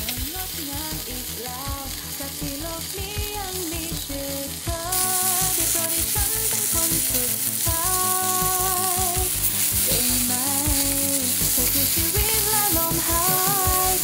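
Sliced meat sizzling on a hot domed moo kata grill pan, a steady hiss that grows louder about five seconds in as more meat goes on, under a background song.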